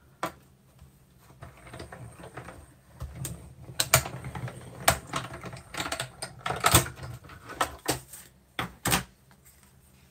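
Hand-cranked die-cutting machine rolling a stack of plastic cutting plates through to cut paper balloons, with scraping and a string of sharp plastic clicks and knocks as the plates are fed in and handled. The clicks are loudest in the second half.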